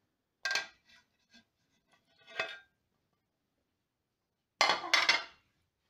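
Crockery and a utensil clinking as chopped chorizo and bacon are scraped off a plate into a serving dish: a clink about half a second in, another around two and a half seconds, and a louder cluster of clinks near the end.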